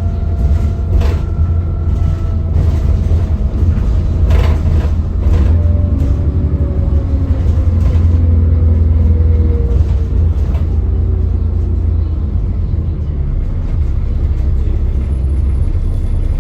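Alexander Dennis Enviro400 E40D double-decker bus's diesel engine running with a heavy low rumble, and a thin whine, which the title calls turbo whine, falling slowly in pitch over the first ten seconds or so. A few brief knocks and rattles sound along the way.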